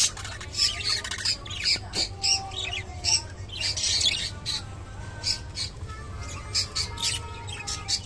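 Budgerigars chattering in rapid short, harsh squawks, busiest in the first half, with thin whistled warbling notes from about five seconds in.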